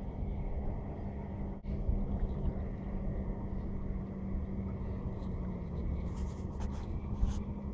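Boat motor running steadily: a low rumble with a constant hum, and a few light clicks near the end.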